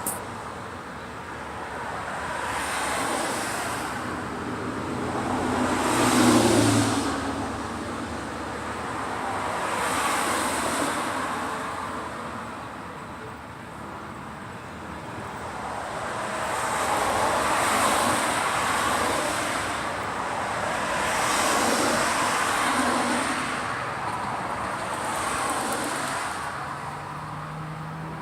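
Road traffic: cars passing one after another, each swelling and fading over a few seconds, the loudest about six seconds in with an engine hum.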